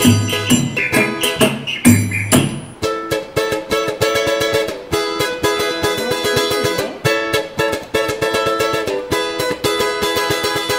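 Music: strong beats for the first two and a half seconds, then a small plucked string instrument playing a fast run of notes alone, the mystery instrument of a guess-the-instrument song.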